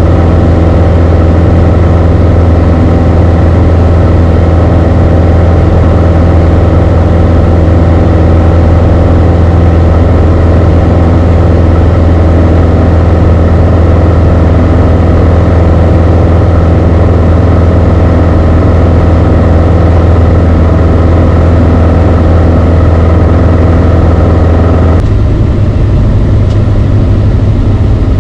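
Beechcraft Sundowner 180's four-cylinder Lycoming engine and propeller droning steadily, heard inside the cockpit. The engine note changes abruptly near the end, its middle tones fading.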